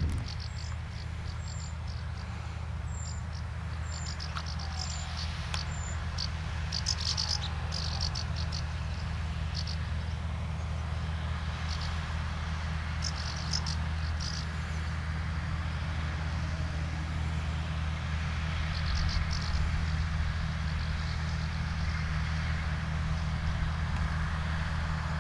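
John Deere 3050 tractor running a trailed forage harvester on grass silage, a steady low engine drone. Short high chirps from birds or insects sound over it in bursts, a falling series in the first few seconds and clusters later.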